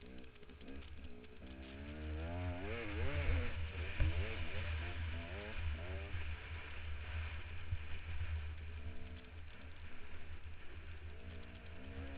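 Dirt bike engine revving up and down as the bike climbs a steep sandy hill. Heavy wind rumble buffets the helmet-camera microphone.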